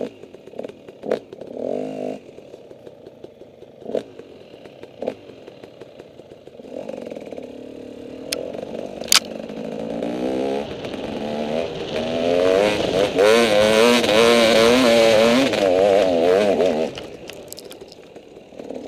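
Off-road vehicle engine running over rough trail, its pitch wavering up and down with the throttle, growing louder past the middle and easing off near the end. Several sharp knocks and rattles come through in the first half.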